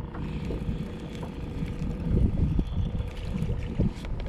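Wind buffeting the microphone on a small fishing boat: an uneven low rumble, with a faint steady hum underneath and scattered small clicks.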